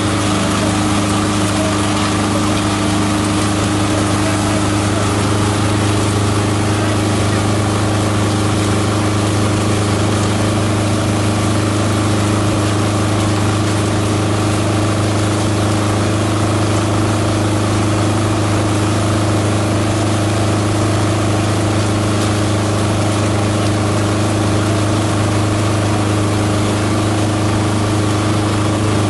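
Motor-driven multi-purpose chopper-shredder running steadily as it shreds green plant material, a constant low hum with no let-up.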